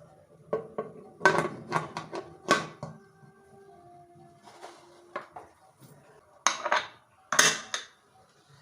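Metal utensil knocking and clinking against cooking pots and dishes in several short clusters. The loudest knocks come between about one and two and a half seconds in, and again near the end, with faint ringing between them.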